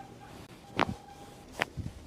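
Joint cracks during a chiropractic adjustment: two sharp pops, the first a little under a second in and the second near the end, with a fainter knock just after it.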